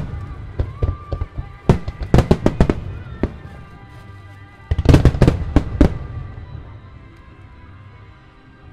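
Starmine fireworks: aerial shells bursting in rapid clusters of sharp bangs, in three volleys with the biggest about five seconds in, the bangs dying away after about six seconds. Music plays steadily underneath throughout.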